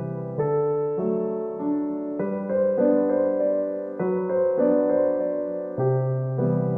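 Background music: a soft electric-piano melody over held chords, changing notes about every half second.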